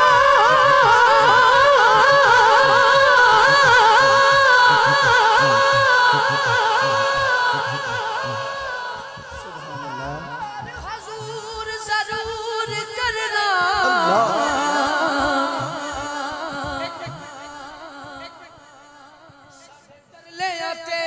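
A man's voice singing a Punjabi naat, holding long, wavering melismatic notes. It fades about eight seconds in, comes back with a phrase that slides down in pitch, and dies away near the end.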